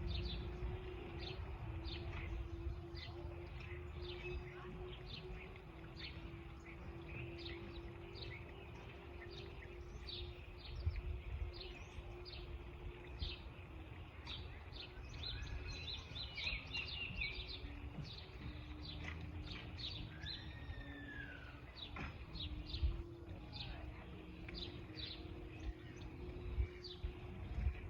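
Several songbirds chirping in short, frequent high notes, with a brief warbled phrase midway and a single arching whistle a few seconds later. Under them run a steady low hum and a low outdoor rumble.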